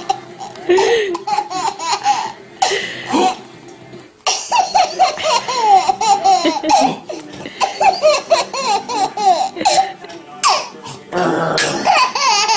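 A baby laughing hard in quick, repeated high-pitched bursts of belly laughter, with a short lull about three to four seconds in.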